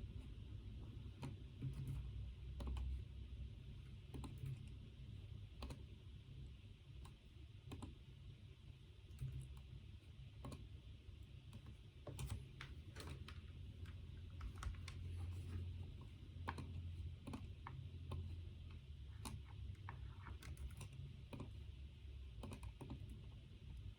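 Typing on a computer keyboard: scattered, irregular keystrokes over a low steady rumble.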